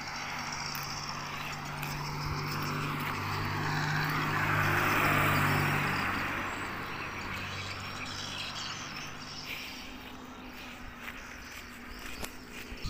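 A car driving past on the road close by. Its tyre noise and engine swell to a peak about five seconds in, then fade away.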